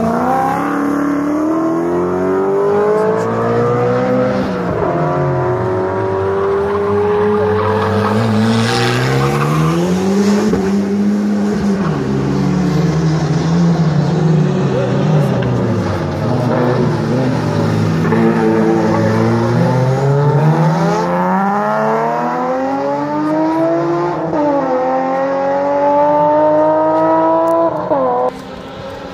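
Rally car engine accelerating hard, its pitch climbing and dropping again and again as it shifts through the gears. About halfway through it falls away and then climbs once more. It cuts off abruptly near the end.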